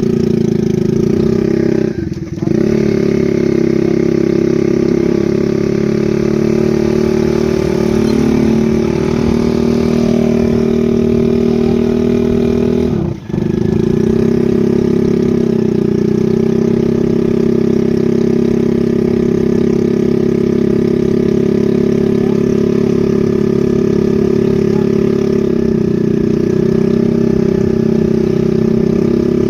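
An engine running steadily at constant speed, with two brief drop-outs about two seconds in and about thirteen seconds in.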